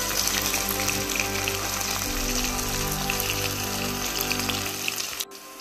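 Sliced onions sizzling and crackling in hot oil in a wok, over background music with steady low notes. The sizzle cuts off suddenly near the end.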